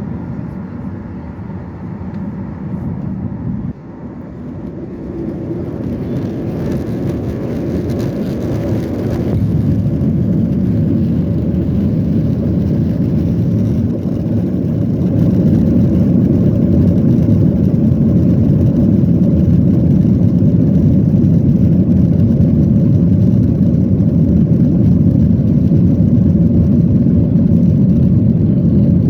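Boeing 737-800's CFM56 jet engines spooling up to takeoff thrust, heard inside the passenger cabin. The low engine and airframe noise grows louder from about four seconds in for roughly ten seconds, then holds steady and loud through the takeoff roll.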